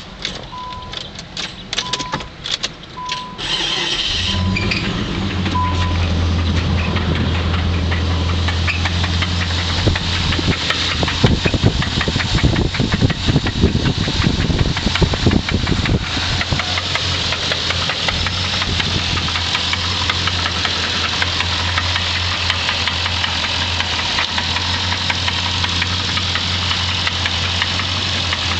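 The 1990 Infiniti Q45's 4.5-litre V8 cranks and catches about four seconds in, then idles with a fast, steady knocking, loudest between about ten and sixteen seconds in. The owner takes the knock for rod knock. A warning chime beeps evenly over the first few seconds.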